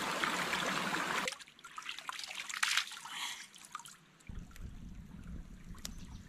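Heavy rain hissing, cut off after about a second, then a quieter creek with water trickling and small splashes as hands dip into it. Near the end a low rumble comes in.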